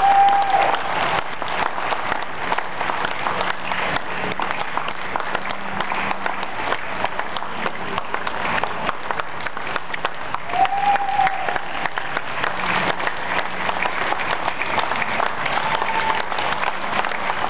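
A crowd applauding: many people clapping steadily and densely, with three short high calls rising briefly above the clapping, at the start, about ten seconds in, and near the end.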